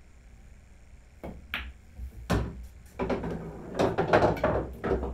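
A pool shot: the cue tip clicks against the cue ball, the balls click together, and there is a louder knock as the black ball drops into a pocket, followed by a run of clattering knocks for about two seconds.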